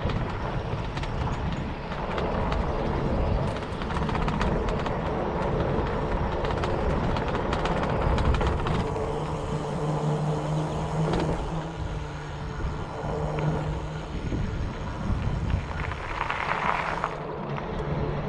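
Bicycle riding: tyres rolling over the wooden planks of a footbridge deck and then along a paved path, under a steady rush of wind on the microphone. A steady hum comes in about halfway through and fades a few seconds before the end.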